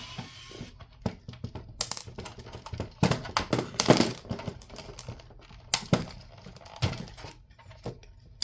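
Irregular clicks, knocks and rustling of a radio's parts being handled and pried as its speakers are pulled out, loudest in a cluster about three to four seconds in.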